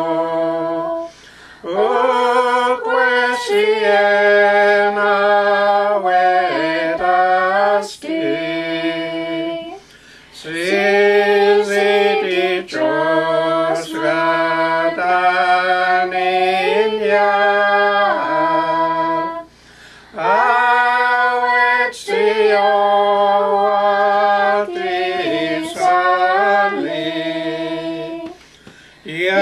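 A hymn sung unaccompanied in Carrier (Dakelh) by a small group of men's and women's voices, in long held notes. The singing breaks off briefly between phrases, about every nine seconds.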